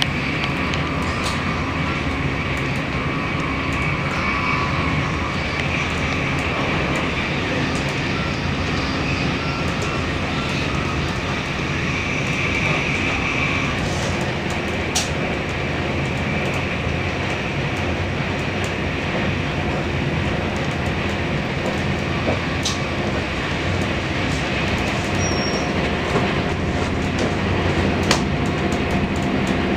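Passenger train running steadily, heard from inside the carriage: a continuous rumble of the wheels on the rails, with a few sharp clicks.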